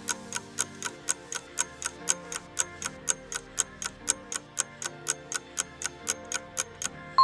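Countdown timer sound effect ticking evenly, about four ticks a second, over soft background music.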